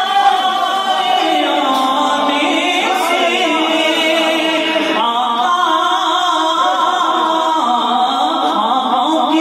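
A man singing a manqabat, an Urdu Sufi devotional song, solo into a microphone. His voice holds long, wavering notes.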